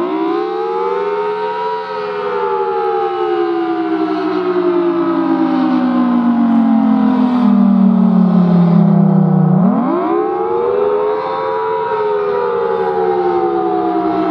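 Federal Signal Thunderbolt 1000BT storm siren sounding loudly. Its pitch climbs quickly, slides slowly down over about eight seconds, then climbs again about ten seconds in, over a steady low tone.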